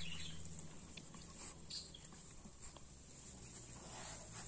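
German shorthaired pointer puppies nursing from their mother: faint small smacks and shuffling in straw bedding, over a steady faint hiss.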